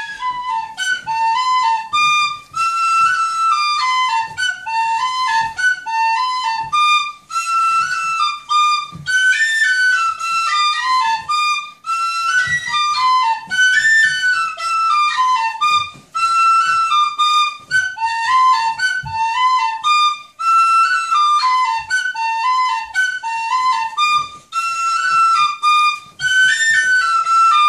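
Tin whistle played by a child, a lively tune of quick stepping notes that repeats its phrase, accompanying Irish dancing, with dull thumps of dance steps on the floor underneath.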